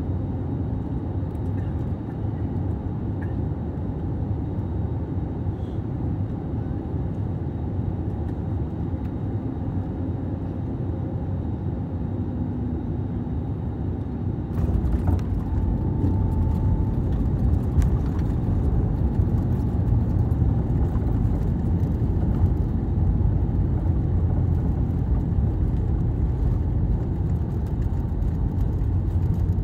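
Cabin sound of an Airbus A320-family airliner on final approach: a steady engine and airflow hum. About halfway through the wheels touch down and the sound steps up abruptly into a louder rumble as the plane rolls out on the runway with its spoilers raised.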